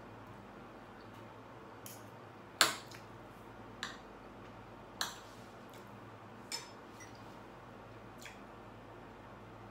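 Metal fork and knife clinking and scraping against a plate while cutting food: a handful of sharp, separate clinks, the loudest about two and a half seconds in.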